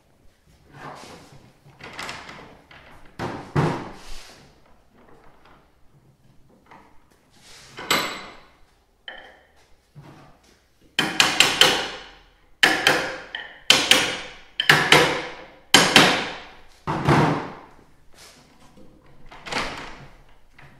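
A series of sharp knocks and bangs as the old carbide runners are worked out of a plastic Ski-Doo Pilot 5.7 ski. A few scattered knocks come first, then a hard run of blows about midway, roughly one to two a second, before it eases off near the end.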